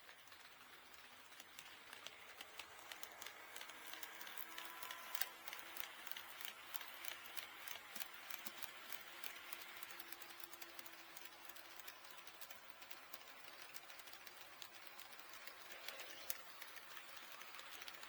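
HO-scale model train running on KATO Unitrack: a rapid, uneven patter of wheel clicks over the rail joints with a faint motor hum. It gets louder over the first few seconds, with one sharper click about five seconds in.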